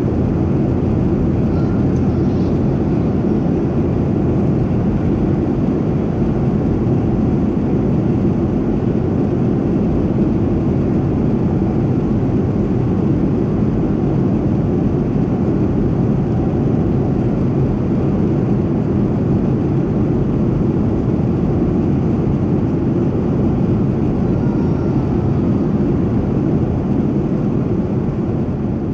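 Steady cabin noise of a Boeing 737-700 in flight, heard at a window seat over the wing: its CFM56-7B turbofan engines and the airflow over the fuselage make an even, low noise. It fades out at the very end.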